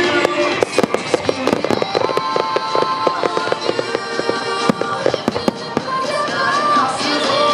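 Aerial fireworks display: a rapid run of sharp bangs and crackles from bursting shells, with music playing throughout.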